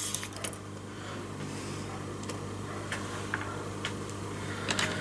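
A few scattered light clicks and taps as a precision screwdriver and small parts are handled on a laptop's display panel, over a steady low hum.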